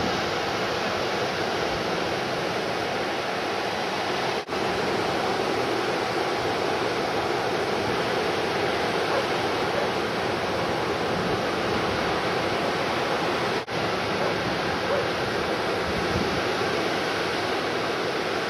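Steady wash of breaking ocean surf, cut off abruptly for an instant twice.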